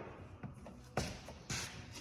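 Hands working paint protection film onto a truck bumper: two short scuffs or taps, about a second in and again half a second later, over a low steady hum.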